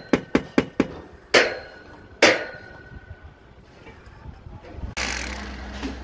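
A hammer striking formwork: four quick knocks, then two louder blows that ring briefly like struck metal. About five seconds in, a steady electric hum starts as a corded power drill runs against concrete.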